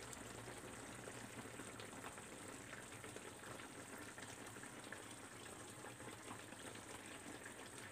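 Faint, steady bubbling and crackle of grated tomatoes simmering in olive oil in a pan.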